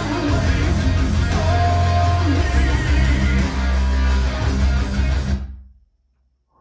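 Guitar-led music with heavy bass played loud through Revel M16 bookshelf speakers driven by a Vincent SP-331 tube-input power amplifier. About five seconds in, the track fades out to silence.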